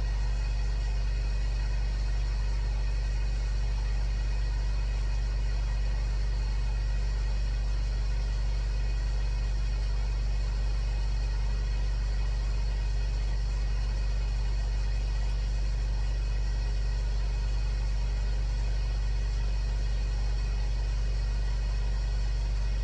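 Ninja countertop grill running while it preheats: a constant low hum from its fan that does not change.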